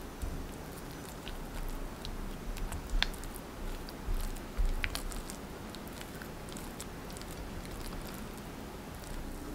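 Silicone spatula stirring and mashing sweet potato purée with butter and milk in a glass bowl: soft wet squishing and scraping with a few light clicks, busiest in the first half and calmer afterwards.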